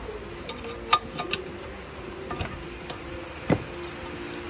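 Pliers clinking and knocking against a steel restrictor plate inside a gutted muffler as it is twisted back and forth to break its tack welds, with sharp metal clicks about a second in and a louder knock about three and a half seconds in. A faint steady hum runs underneath.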